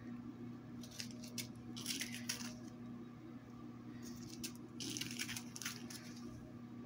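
Small plastic zip bags of diamond-painting drills crinkling as they are handled, in three short bursts of rustling.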